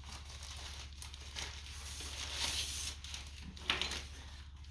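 Packaging being handled: crinkling and rustling that builds to its loudest about two and a half seconds in, then a single sharp click near the end.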